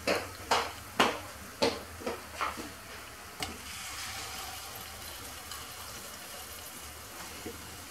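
Hot oil sizzling steadily around bouchnikha pastries deep-frying in a pan, while a metal fork clicks against the pan about eight times in the first three and a half seconds as the pieces are turned and lifted. After that only the sizzling goes on.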